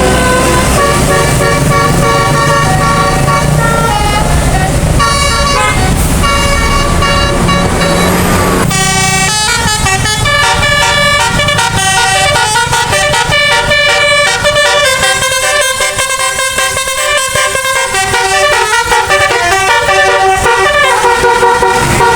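Bus 'telolet basuri' musical air horn playing a quick tune of stepped notes, held and repeated. A low rumble lies under the first nine seconds.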